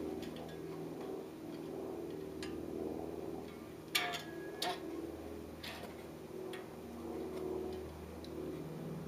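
Scattered light clicks and taps from handling a wooden hive frame and its wire in a frame-wiring jig, the sharpest about four seconds in. Under them runs a steady low hum.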